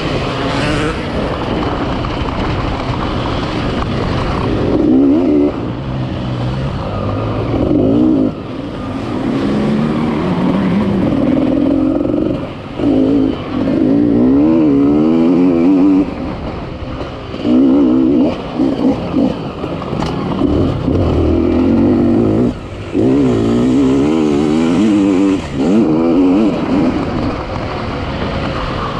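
Off-road enduro motorcycle engines revving hard and unevenly, the throttle opened and shut again every second or two, with short drops in revs a few times.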